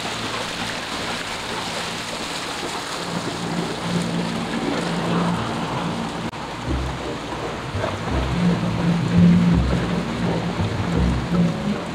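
Motor of a small fishing boat running at speed under a steady rush of wind and water. From about halfway, repeated heavy low thumps come in over it.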